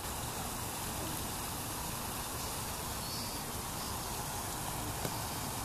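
Steady outdoor background hiss with no distinct source, with a faint short high chirp about three seconds in.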